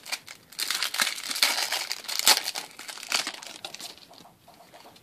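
Foil trading-card booster pack wrapper crinkling as it is torn open, loudest in the first three seconds, then fading to light clicks of cards being handled.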